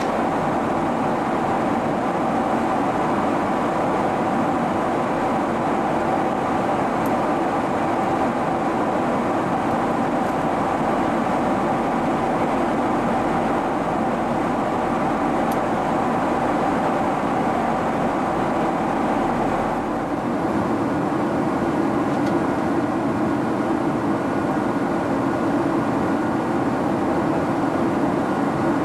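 Steady cabin noise inside a Boeing 767-300 airliner in flight: the engines and airflow make an even rushing noise with a steady hum in it. About twenty seconds in, the hum changes slightly and a higher tone comes in.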